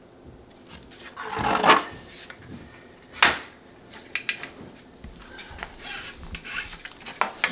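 Vinyl flooring planks being handled and slid into place: a scraping rub about a second in, a sharp scrape or snap about three seconds in, then scattered light clicks and knocks.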